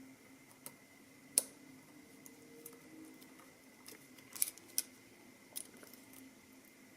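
Lock pick and tension wrench working in the keyway of a CX5 high-security lock: faint metal scraping and a scatter of small, sharp clicks, the sharpest about a second and a half in and two more a little past halfway, over a faint steady hum.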